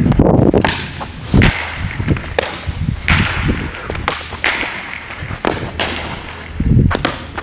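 A string of sharp, echoing knocks and pops, irregularly spaced, over a low steady hum: a baseball being fielded off artificial turf and smacking into a Rawlings Pro Preferred kip-leather fielding glove, the cracks ringing on in a large hall.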